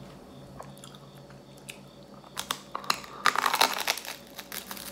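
A bite into crusty toasted garlic bread: a run of crisp crunches starting about two and a half seconds in, densest a second later, then chewing.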